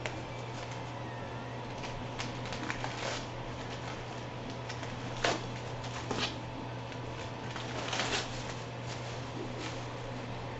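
Clear plastic packaging crinkling in the hands in short crackles, several times, loudest about five and eight seconds in, over a steady low hum.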